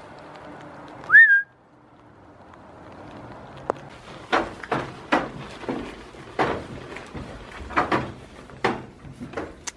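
A short, loud whistle about a second in, rising in pitch and then held briefly. From about four seconds in, goats crunch food taken from a hand in sharp, irregular crunches roughly every half second.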